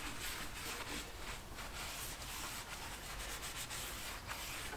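Oil being rubbed by hand onto a machine tool's bare machined metal surfaces: a steady, soft rubbing.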